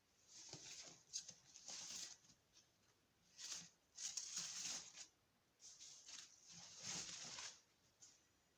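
Faint rustling and scraping as the wheel is handled and inspected by hand, in a string of short bursts with brief pauses between.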